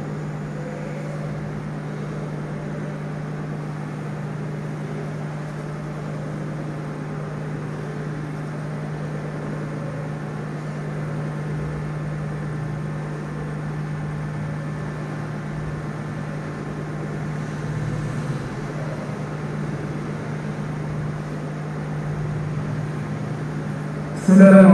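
Steady low hum over faint room noise, with a soft rustle about three-quarters of the way through. Right at the end, a man's voice starts reciting the Quran loudly over the mosque's sound system.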